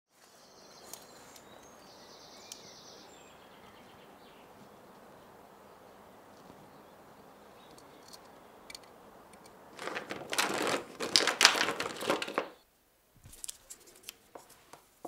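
Quiet outdoor background with faint birdsong, then about ten seconds in a loud rustling and crinkling that lasts two or three seconds, followed by light clicks and taps of paint tubes and brushes being handled on a studio table.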